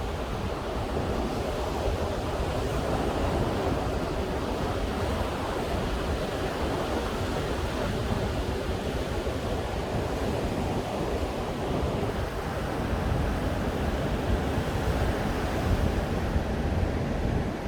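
Ocean surf washing onto a beach in a steady roar of breaking waves, swelling a little louder near the end, with wind buffeting the microphone.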